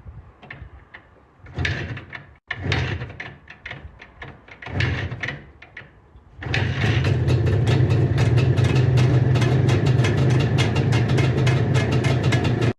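IZh Jupiter-4 two-stroke twin motorcycle engine sputtering in a few short bursts, then catching about six seconds in and running steadily. This is the first start after a cylinder head gasket repair, with the engine still cold.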